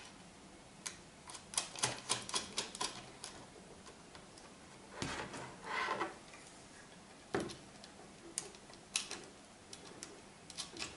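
Plastic and metal parts of a slingshot crossbow clicking and knocking as an arm is fitted back on. There is a quick run of sharp clicks in the first few seconds, two short scrapes about halfway through, and a few single knocks and clicks later.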